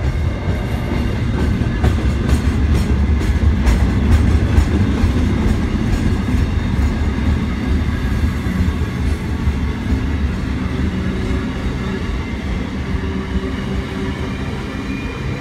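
Container wagons of a long intermodal freight train rolling past: a steady, heavy rumble of steel wheels on rail, with a run of rattling clicks in the first few seconds.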